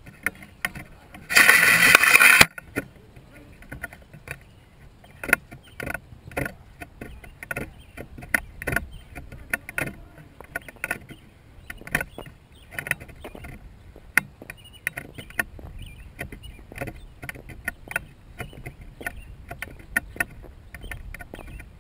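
Handling noise from a camera being carried along: irregular sharp clicks and knocks with a low rumble, and a loud rushing scrape lasting about a second near the start.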